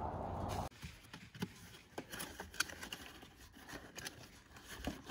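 A steady rushing noise cuts off abruptly just under a second in. Then comes a cardboard box being handled and cut open with a knife: scattered rustles, scrapes and small clicks.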